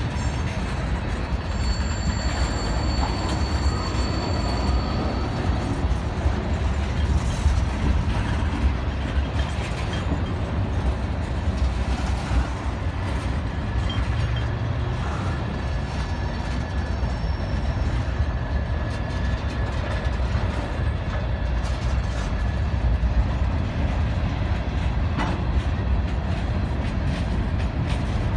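Freight cars of a slow-moving CSX manifest train, mostly tank cars and covered hoppers, rolling past. Their steel wheels make a steady rumble on the rails.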